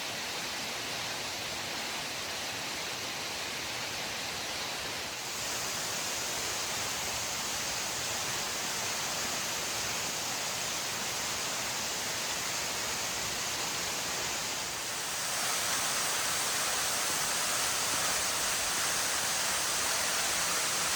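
Rushing creek water, a steady hiss that gets louder in two steps, about five seconds in and again about fifteen seconds in.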